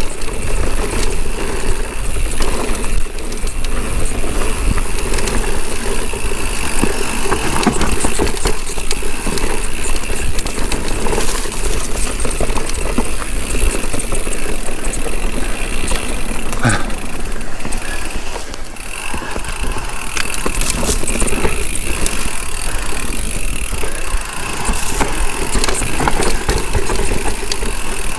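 Mountain bike descending a rough downhill trail: continuous clatter and rattle of tyres, chain and frame over dirt and rocks, with many sharp knocks.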